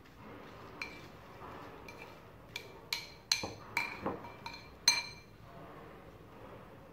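A metal spoon clinking against a glass bowl while stirring fried corn kernels, about nine ringing clinks with a soft rustle of the corn between them. The loudest clink comes about five seconds in, then the clinking stops.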